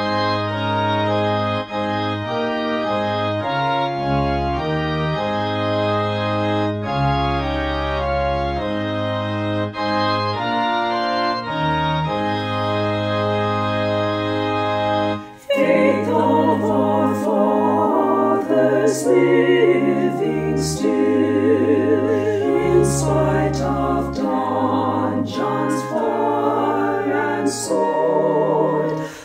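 Church organ playing a hymn in sustained chords. About fifteen seconds in, a choir starts singing with the organ.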